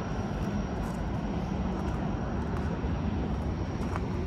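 Steady low engine drone of a passenger hydrofoil speeding across the lake.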